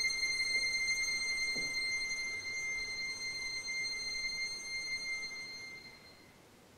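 Violin holding one very high, thin bowed note for about five seconds, fading out to nothing near the end as the piece closes.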